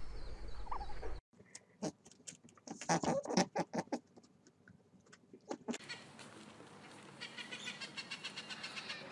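A low rumble for the first second, then a run of sharp clicks and rasping bursts, loudest about three seconds in. In the last three seconds a rainbow lorikeet chatters in fast, high, repeated notes.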